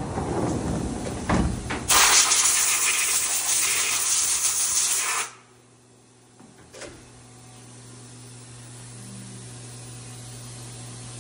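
Haas CNC milling machine: the sliding enclosure door is pulled open with a few knocks, then a loud, even spray hiss runs for about three seconds and cuts off suddenly, leaving only a low steady hum from the machine.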